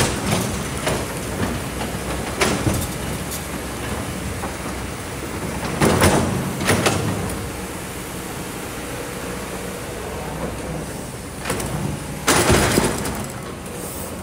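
Kobelco hydraulic excavator engine running steadily, with several short bursts of scraping and clattering as its bucket digs into rock and sand. The loudest bursts come about six seconds in and near the end.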